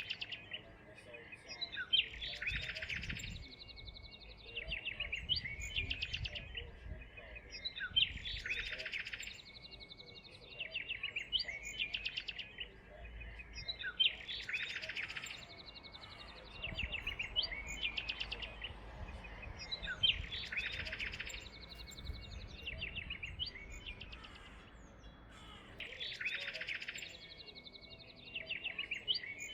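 Small songbirds chirping and twittering in high, quick notes. The same run of chirps repeats about every six seconds.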